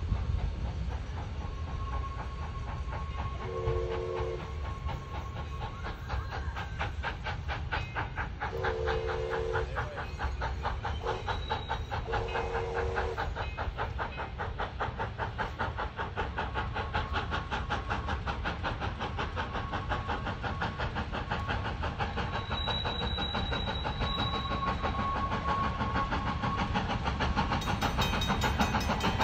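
Steam train running with a steady rhythmic clatter and hiss. Its whistle sounds several held blasts in the first half: one near the start, then a longer pair a few seconds later.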